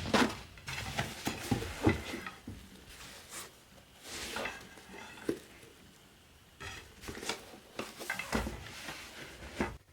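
Intermittent light clinks, taps and rustling of objects being handled, with a few sharper knocks, before the sound cuts off abruptly near the end.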